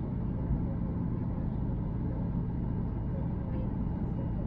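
Steady low rumble of a Boeing 737-800's CFM56 engines and airflow, heard inside the passenger cabin.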